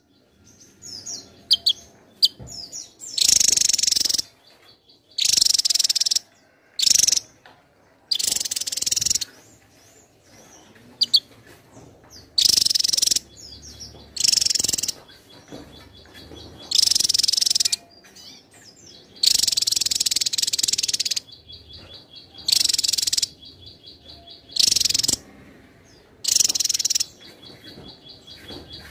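Javan tesia singing repeatedly: loud, high-pitched phrases about a second long, coming every one to two seconds, with short thin notes and a faint high trill between them.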